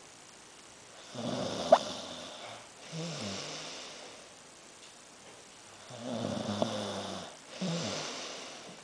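Snoring in deep sleep: two long snores on the in-breath, about five seconds apart, each followed by a shorter breath out. Each snore has a brief high squeak partway through.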